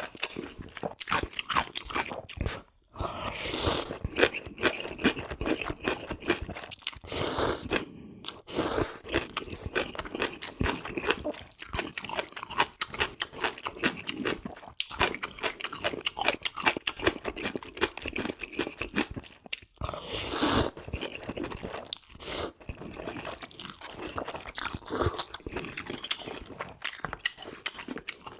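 Close-miked eating: steady chewing and crunchy bites of food, with a few longer slurps of ramen noodles.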